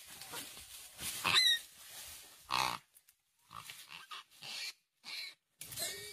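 Piglet squealing as it is held in a Komodo dragon's jaws: several separate squeals, the loudest about a second in and another about two and a half seconds in, then shorter broken calls.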